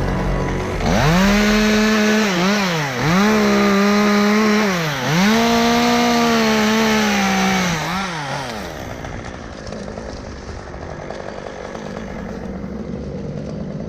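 Two-stroke chainsaw run at full throttle in three long pulls, the revs dipping briefly between them. It is let off about eight seconds in, leaving only a faint steady background.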